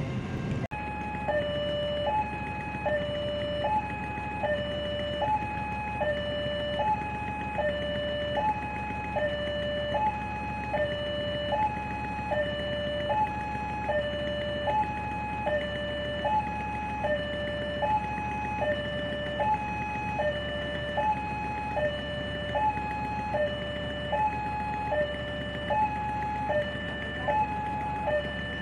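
Railway level-crossing warning alarm sounding a repeating electronic two-tone signal, a higher note then a lower one, about one cycle a second, which warns that a train is approaching. A steady low hum runs underneath.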